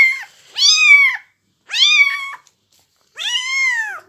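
Two-week-old Maine Coon kitten crying out repeatedly in high, thin mews, four cries each rising then falling in pitch.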